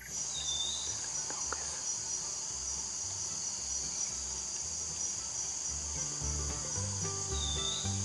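A steady, high-pitched insect drone from a tree-canopy chorus, with a low stepping bass line of background music underneath.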